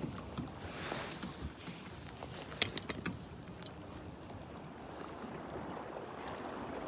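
Wind with water lapping, and a few sharp clicks about two and a half seconds in.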